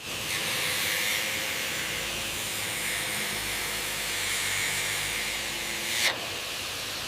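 A steady spraying hiss, with a brief break about six seconds in.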